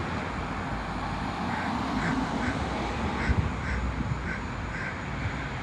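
Steady outdoor background noise with a series of short, repeated animal calls, about two or three a second, starting about a second and a half in.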